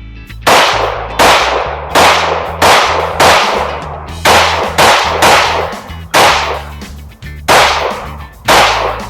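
9mm Glock 19 pistol fired about a dozen times in quick succession, each shot with a long echoing tail, the last few spaced a little further apart. Background music plays underneath.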